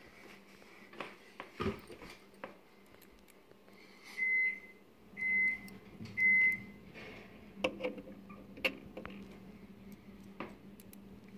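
Three short, high electronic beeps about a second apart, with scattered light clicks and knocks of handling around them.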